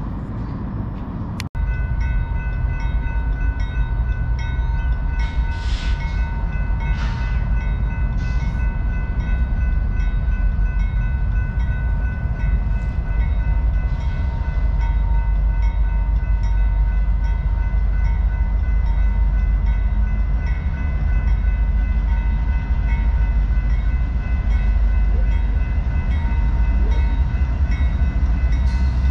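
BNSF intermodal freight train with its diesel locomotives running past, a heavy low rumble with a steady high ringing tone over it. The sound begins after a brief dropout about a second and a half in.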